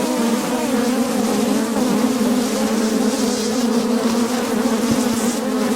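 Honeybees buzzing right at a chest-worn microphone, a steady drone of many overlapping wingbeat hums. The bees are swarming and attacking the mic beside the open hive.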